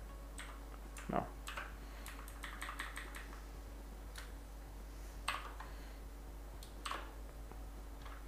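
Computer keyboard keystrokes, scattered key presses with a quick run of taps in the middle and a few louder presses, faint under a steady low hum.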